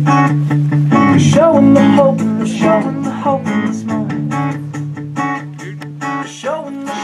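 Music: acoustic guitar strummed in a steady rhythm over held chords, with a melody line gliding in pitch about a second in.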